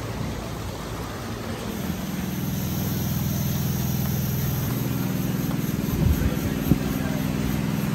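An engine running steadily at a low, even pitch, growing louder about two seconds in, with a couple of short thumps near the end.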